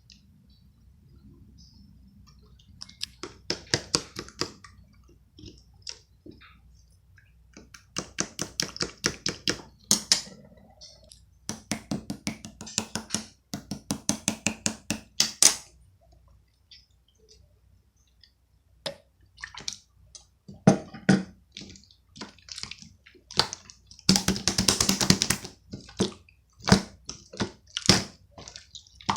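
Opaque slime being squeezed and kneaded by hand: bursts of rapid wet clicks and pops lasting a few seconds each, with short pauses between.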